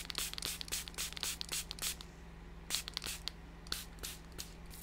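Small plastic fine-mist spray bottle pumped over and over, spritzing ink onto paper in a quick series of short hissing sprays, several a second, with a brief pause about halfway through.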